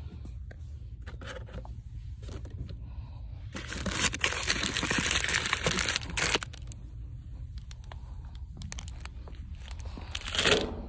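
Crinkling and rustling of handled material, loudest for about two and a half seconds starting about four seconds in and again in a short burst near the end, over a steady low hum.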